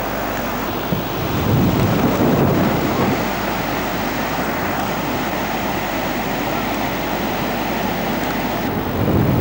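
Wind buffeting the camcorder's built-in microphone: a steady rumbling noise that swells in a gust about a second and a half in, then settles.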